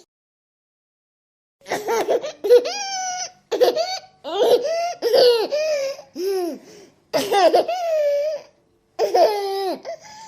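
A baby laughing in several high-pitched bouts that slide up and down in pitch, starting after about a second and a half of silence.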